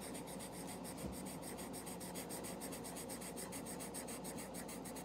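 Felt-tip marker colouring in on paper: a faint, steady rubbing of the tip across the page as an area is filled in.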